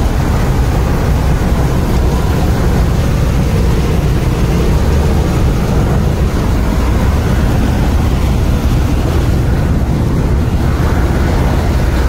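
Combine harvester running close by, a loud, steady engine drone with no let-up.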